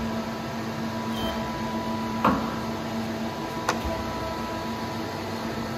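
Steady machine hum with a few fixed tones, with two short sharp clicks about a second and a half apart near the middle.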